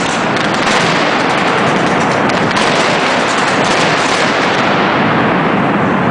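Fireworks going off in a dense, rapid barrage of bangs and crackles, like machine-gun fire; the sharpest crackling dies down after about four seconds.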